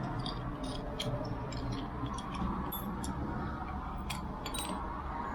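Irregular light metallic clicks and taps of door lock parts being handled and fitted, over a steady low background hum.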